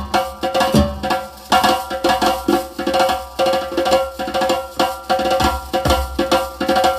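Fast Middle Eastern-style hand-drum rhythm from percussion samples finger-drummed on a Maschine Studio pad controller, dense sharp strikes with a few deep low hits and a pitched ring under them.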